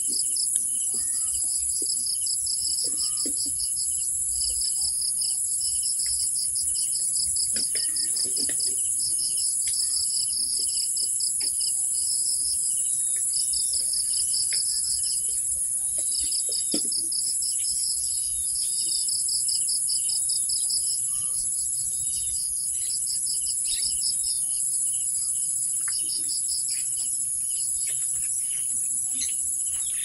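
Insect chorus: a steady high-pitched buzz with a rapidly pulsing trill beneath it, and scattered short bird chirps.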